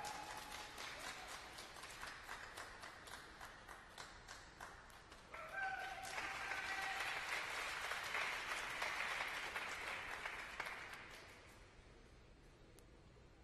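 Audience applauding, with brief calls from the crowd; the applause swells about six seconds in and dies away near the end.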